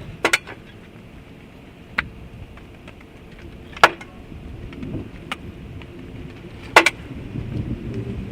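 Split firewood being unloaded and tossed onto a pile: sharp wooden knocks every couple of seconds, some in quick pairs, over a low wind rumble that builds near the end.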